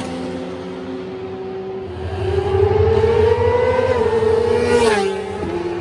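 Superbike exhaust at high revs. It grows louder from about two seconds in with its pitch slowly rising, then the pitch drops sharply near the end as the bike passes by.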